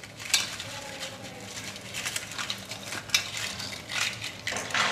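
Crisp fried rice-flour snack triangles clinking and rustling against a steel plate as they are tipped from a wire strainer and arranged by hand, in scattered light clicks.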